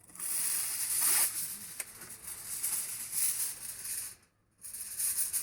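Aluminium foil crinkling as it is pulled and pressed tightly over a pan, with a short pause about four seconds in.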